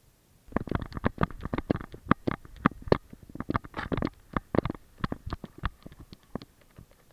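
Rapid, irregular knocks and thumps from a GoPro strapped to a running Weimaraner's back: the camera housing and harness jolt with each stride. They start about half a second in and thin out near the end as the dog slows at the water.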